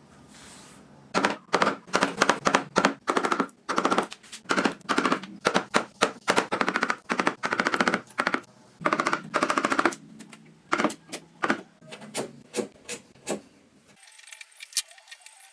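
A hand tool working wood in quick, even strokes, about three or four a second, thinning to fewer, spaced strokes later on and stopping near the end.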